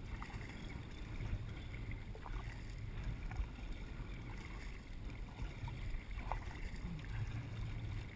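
Kayak on open water: a low rumble of wind on the microphone with faint water sounds around the boat, and a few faint short sounds scattered through.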